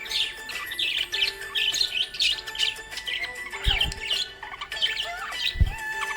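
Budgerigars chirping and chattering in quick, continuous short calls over steady held tones, with two dull low thumps in the second half.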